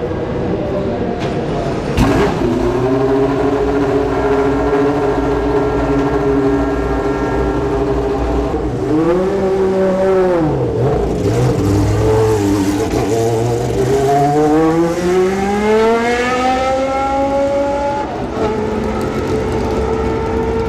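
Group C prototype race car engine running hard, with a sharp crack about two seconds in. The pitch holds steady, dips and picks up again about halfway, then rises in a long sweep through a gear. It drops suddenly at an upshift near the end and starts rising again.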